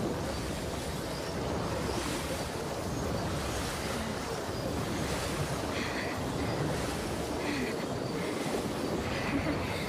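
Steady rushing noise from an anime soundtrack, with a few short, faint higher sounds about six seconds in and again near the end.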